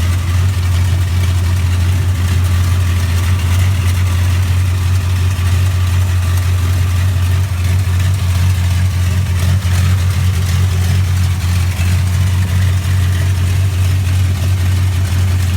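1955 Chevrolet's engine idling steadily, a low, even note that does not change.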